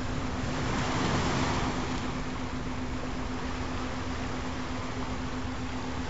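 Recorded ocean surf: a steady rush of waves, with one wave swelling and falling back about a second in, over a steady low tone.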